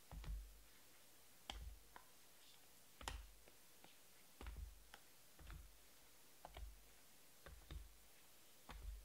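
Faint clicks with soft low thumps, roughly once a second at an uneven pace: trading cards being handled and set down on a tabletop while they are sorted.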